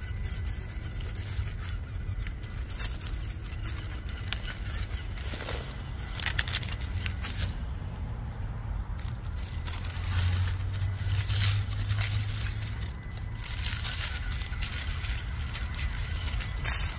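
Irregular crunching, crackling and scraping on railway ballast gravel, over a steady low rumble that swells for a few seconds in the second half.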